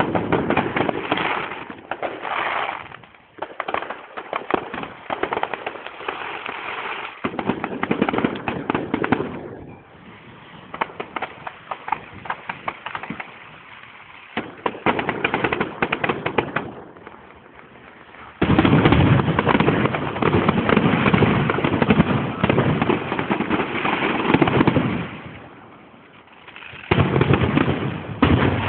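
Fireworks display: rapid, dense bangs and crackling throughout. A louder, fuller barrage starts about two-thirds of the way in, and another burst comes near the end.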